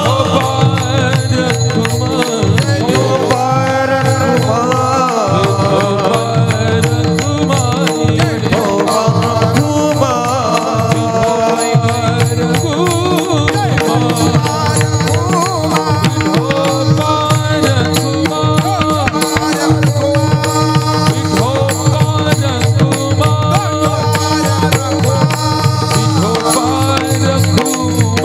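Marathi devotional kirtan music: a gliding melody over a steady drone, with continuous hand-drum percussion keeping a fast rhythm.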